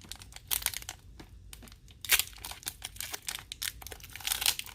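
Foil Pokémon booster pack wrapper crinkling and tearing as it is opened by hand, an irregular run of sharp crackles.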